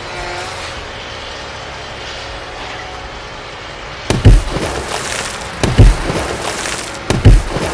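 Three heavy thumps about a second and a half apart in the second half, each with a short rushing tail, over a low steady background.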